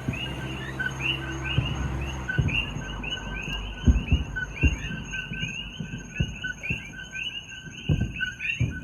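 Distant fireworks bursting as a string of low booms, the loudest about four seconds in, over a steady night chorus of rapid chirping from frogs.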